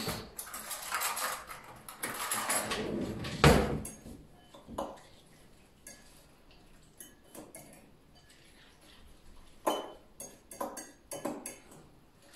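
Cutlery and dishes clattering as a kitchen drawer is rummaged, with one loud clank about three and a half seconds in. Then a utensil clinks now and then against a glass bowl as marinade is stirred.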